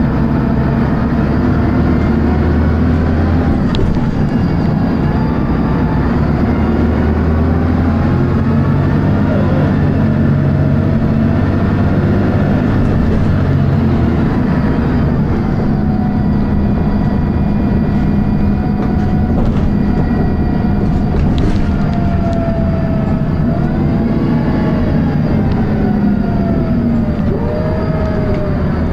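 Dennis Arrow bus running under load, its diesel engine thrashing, with whining tones that rise and fall as speed and gears change through the ZF automatic gearbox. A high-pitched whine sounds over the engine in the second half.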